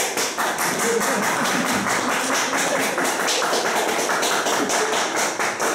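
Audience applauding: a dense, steady patter of many hand claps.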